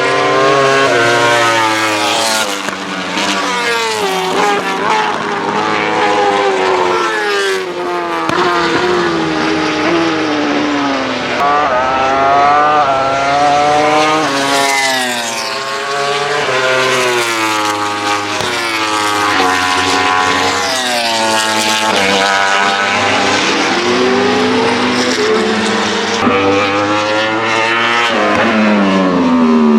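Yamaha YZF-R1 World Superbike race bikes, inline-four engines with Akrapovic exhausts, passing at race speed one after another. Their engines rev up through the gears in rising steps and drop away on the brakes, with two bikes overlapping at times.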